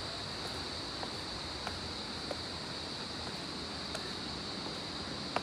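A steady high insect drone over a constant rush of distant falling water, with a few faint clicks of footsteps on steps.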